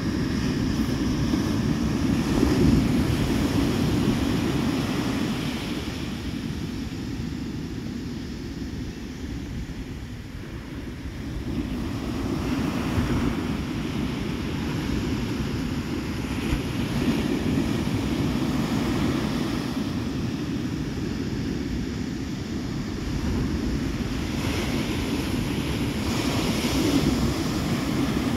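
Ocean surf breaking and washing up a sandy beach, swelling louder and softer every several seconds, with wind rumbling on the microphone.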